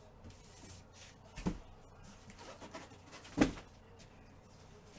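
Two dull knocks in a small quiet room, the first about a second and a half in and the second, louder one about three and a half seconds in.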